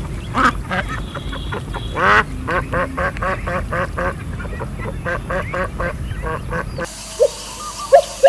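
A flock of domestic fowl giving rapid, overlapping calls, several a second. Near the end the sound cuts to slower, evenly spaced calls.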